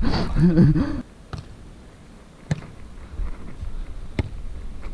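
A player's shout, then a few sharp slaps of hands striking a beach volleyball during a rally, the clearest two about a second and a half apart. Wind rumble on the helmet camera's microphone.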